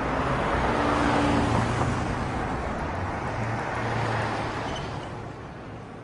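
Steady rushing background noise with a faint low hum, swelling about a second in and fading gradually over the last couple of seconds.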